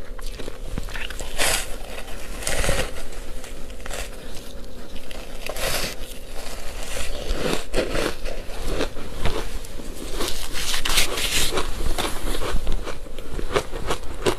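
Close-miked chewing and biting of soft, powdery ice coated in matcha powder: a dense, irregular run of soft crunches and crackles.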